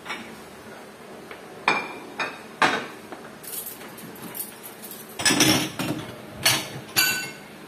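Dishes and cutlery clinking as a dishwasher is unloaded: ceramic plates set down on a stack and cutlery handled, a handful of sharp knocks with a longer clatter about five seconds in.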